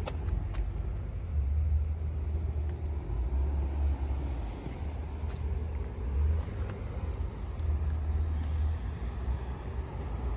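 Low, uneven outdoor rumble with a few faint clicks.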